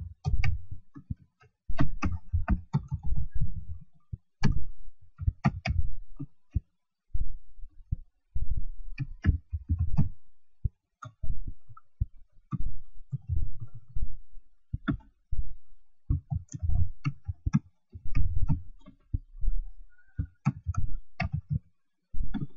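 Computer keyboard typing in irregular bursts of keystrokes, each a sharp click with a dull thud, with short pauses between runs.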